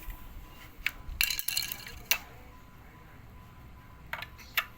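Sharp clicks and rattles of hard plastic being handled, in a few short clusters: one near the start, a dense run about a second in, and more near the end.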